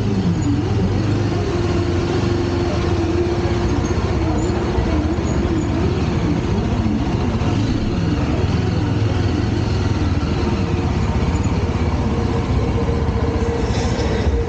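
Motorcycle engines being revved repeatedly in a crowd of bikes, their pitch rising and falling over and over above a steady low engine drone.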